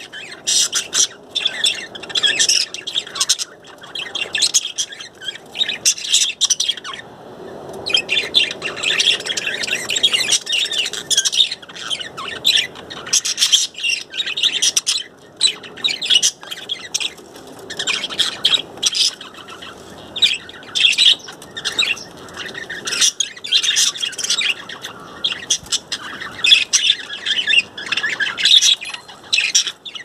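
Several budgerigars chattering: a continuous busy warble of rapid high chirps and squawks, with brief lulls now and then.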